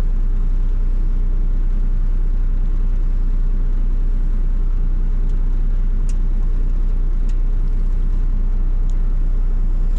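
Steady low rumble of a Volvo VNL semi truck's diesel engine idling, with a few faint clicks over it.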